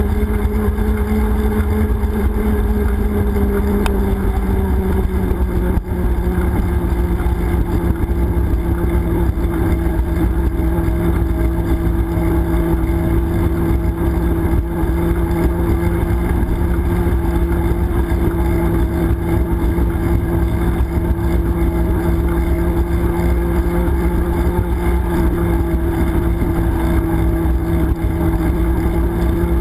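Wind rushing and buffeting over a bike-mounted action camera's microphone while riding, with a steady hum that drops slightly in pitch about four to six seconds in and then holds.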